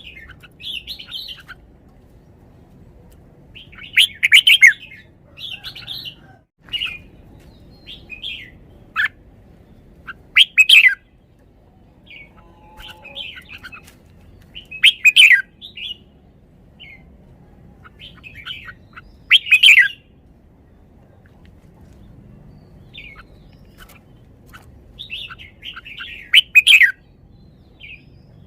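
Red-whiskered bulbul singing: short, loud song phrases that come back about every four to five seconds, with quieter chirps in between.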